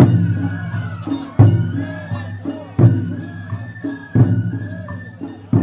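Japanese festival music: a big drum struck about once every second and a half, each stroke dying away, under a held high tone and metallic jingling.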